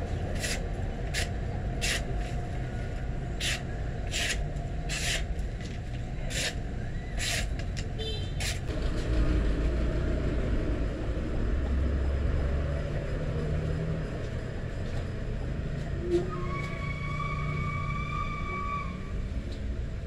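Steady low rumble of vehicle traffic, with a horn sounding for about two seconds near the end. Over the first eight seconds comes a run of short, sharp scratching strokes.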